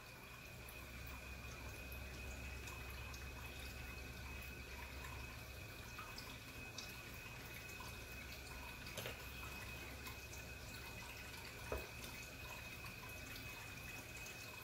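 Quiet kitchen room tone with a faint steady hum and a thin high whine, broken by a few light clicks as a fork crimps pie-dough edges against a metal pan.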